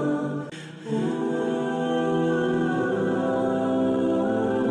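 Background music with long held, wordless vocal-like notes; it dips briefly for under half a second about half a second in.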